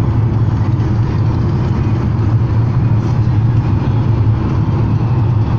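Steady low drone of road noise inside the cabin of a moving car.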